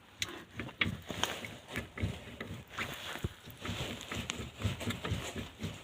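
Repeated short, irregular knocks from a raised car wheel's suspension as the wheel is worked by hand, a sign of play in a worn ball joint.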